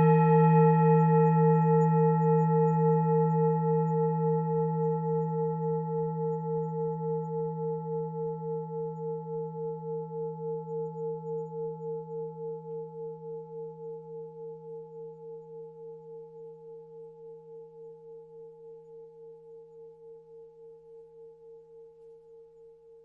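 Tibetan singing bowl ringing on after a single strike: a low hum with several higher overtones, pulsing with a steady waver and slowly dying away over about twenty seconds.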